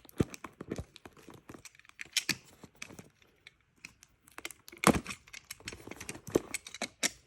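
A knife cutting open a taped cardboard parcel box, with tearing and scraping of tape and cardboard and irregular clicks and knocks. The loudest knock comes about five seconds in.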